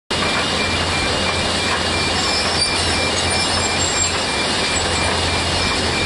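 Kobelco hydraulic excavator and mobile stone crusher running together: a loud, steady heavy-machinery din. Over it a high warning beep alternates between two pitches, about twice a second.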